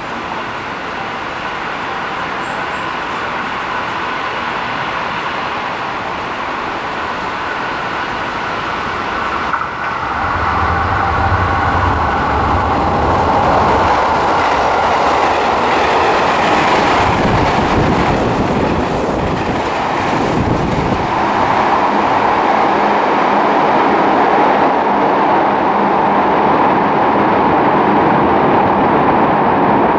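JR West 221 series electric train on a rapid service passing through the station at speed without stopping. The noise builds from about a third of the way in, with wheel clatter over the rails in the middle, then settles into a steady loud roar as the train runs on into the tunnel.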